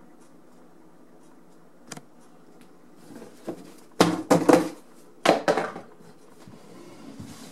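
Rustling and rubbing handling noise close to the microphone, in two loud rough bursts about 4 and 5 seconds in, over a faint steady room hum.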